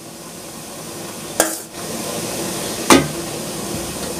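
Kitchen utensils clinking against a stainless steel mixing bowl as thick fish-curry paste is scraped out of it: two sharp clinks about a second and a half apart, over a steady hiss.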